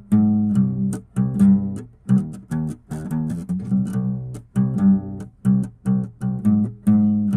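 Background music of plucked guitar notes with a low bass line, in a steady rhythm.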